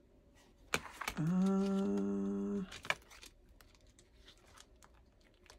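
A woman humming one held note for about a second and a half, rising slightly as it starts. Around it are a few sharp clicks and light rustling as plastic pages of a disc-bound sticker binder are turned.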